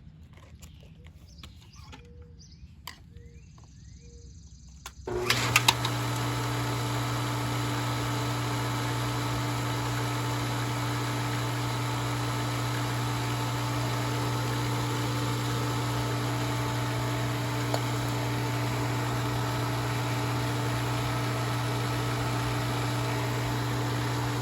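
Pool pump's electric motor switched on about five seconds in, starting suddenly and then running with a steady hum. Before it starts, only a few faint clicks.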